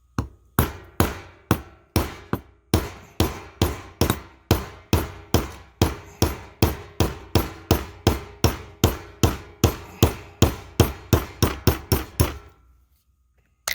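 Hammer tapping a small compression (roll) retention pin out of a differential carrier: a long, even run of sharp metal-on-metal strikes, about two or three a second, with a ringing tone between them, quickening slightly near the end and stopping about a second before the end.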